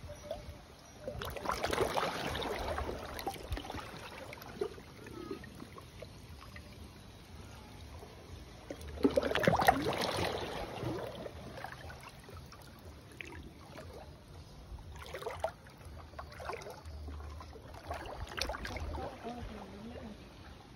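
Shallow seawater sloshing and lapping close by, with two louder swishing surges about two seconds in and again near the middle, and a few short splashes later.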